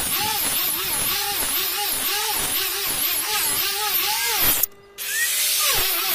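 Electric angle grinder with a sanding disc sanding a wooden door panel, the motor's pitch dipping and recovering about twice a second as the disc is pressed into the wood and eased off. The sound cuts out for a moment just before 5 seconds, then the motor holds a steady pitch briefly before the dipping starts again.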